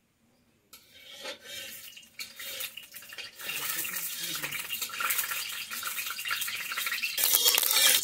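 Food sizzling in hot mustard oil in a kadai, stirred with a utensil that clicks and scrapes against the pan. The sizzle starts about a second in, grows louder, and gets louder again near the end.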